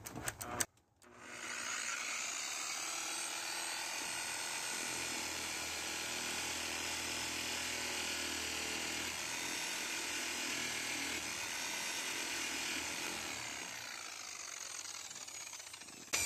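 Power buffer spinning a wool buffing pad while a cleaning tool is held against the pad to clear out debris, a steady rubbing whir. A few clicks come before it starts, and it slows and fades over the last few seconds.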